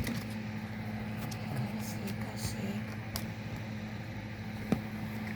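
A steady low mechanical hum, like a fan or household appliance, with faint scattered rustling and two small clicks.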